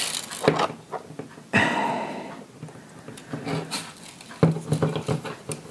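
Small metal toy chains clinking and plastic parts clicking as the chains are fitted onto an action figure's hands, with a sudden breathy puff about a second and a half in.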